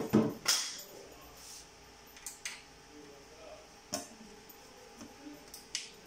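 Metal knocks, a scrape and sharp clicks as the sheet-metal cover of an SLE 5000 infant ventilator is handled and worked off by hand: a loud knock and scrape at the start, then a few separate ticks over the next seconds.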